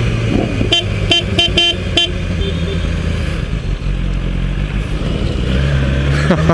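Motorcycle engine running steadily, with a quick run of about five short horn toots about a second in.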